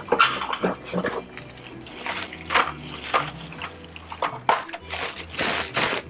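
Plastic parts bag crinkling and rustling in irregular bursts as it is handled, over background music with a low bass line.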